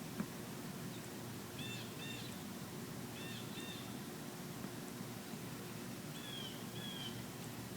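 A bird calling outdoors in short two-note calls, repeated several times over steady background noise. The later pairs are slurred downward. A single sharp click is heard just after the start.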